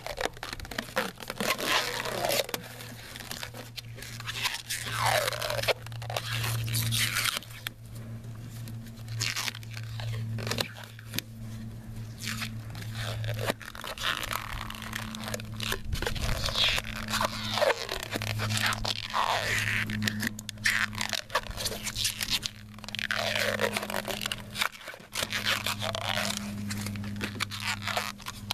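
Plasti Dip rubber film being peeled by hand off a truck's headlight lenses, crackling and scraping in repeated pulls. A steady low hum runs underneath.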